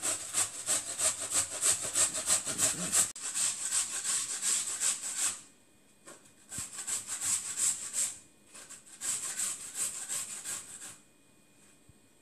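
White radish being grated on the fine side of a metal box grater: rapid rasping strokes, about four or five a second, in three runs with short pauses between, stopping about a second before the end.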